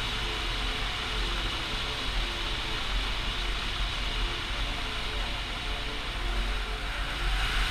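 KTM 450 EXC's single-cylinder four-stroke engine running as the bike rides, under steady wind noise rushing over the camera microphone.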